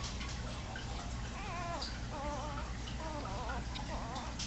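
Newborn labradoodle puppies squeaking and whining: a run of short, wavering high-pitched cries, starting about a second in and repeating several times.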